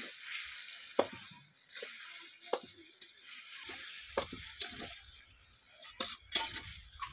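A spoon scraping and stirring thick food around a metal kadai, with sharp clinks of the spoon against the pan several times.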